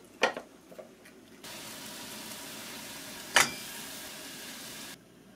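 Kitchen sounds: a couple of light knocks, then a steady hiss that cuts in and out abruptly, with one sharp clack in the middle of it.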